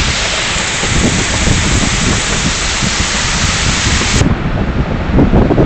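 Heavy hail and rain pelting down in a thunderstorm, with wind buffeting the phone's microphone. About four seconds in, the high hiss suddenly drops away and the sound turns duller.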